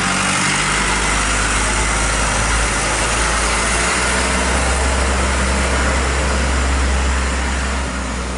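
Fire truck's engine running steadily as the truck pulls away, growing a little quieter near the end.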